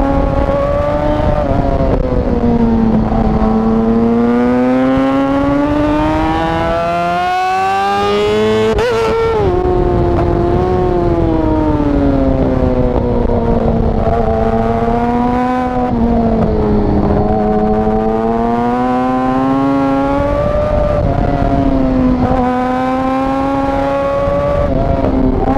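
Yamaha R6 sport bike's inline-four engine running at high revs, its pitch rising and falling with the throttle and gear changes. About nine seconds in the pitch climbs sharply and then drops away.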